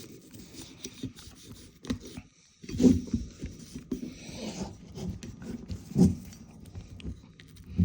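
A small cleaning brush scrubbing the frame of a Ruger Security-9 Compact pistol in short scratchy strokes, with a few light knocks as the gun is handled. The loudest knocks come about three and six seconds in.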